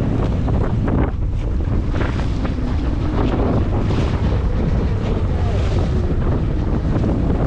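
Wind buffeting the microphone on a boat at sea, a steady heavy rumble with hiss above it.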